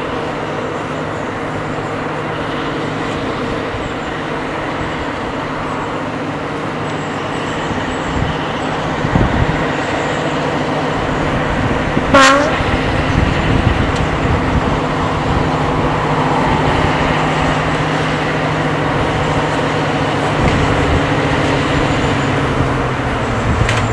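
Class 55 Deltic diesel locomotive 55022 'Royal Scots Grey' moving slowly with its twin Napier Deltic two-stroke engines running, the engine note steady and growing louder as it approaches. A few knocks come from the running gear, and a short, sharp, high sound comes about halfway through.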